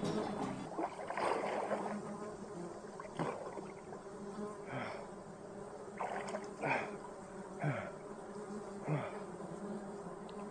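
A swarm of horse flies buzzing close around the microphone: a steady drone, with single flies passing near every second or so, each pass a short louder buzz that drops in pitch.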